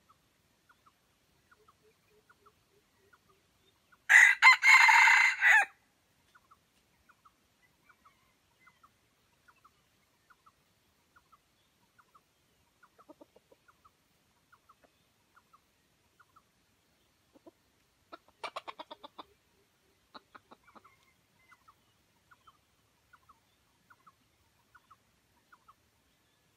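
Junglefowl rooster giving one short, loud crow about four seconds in. Bursts of quick clucking follow later, near the middle and toward the end, over a faint regular ticking.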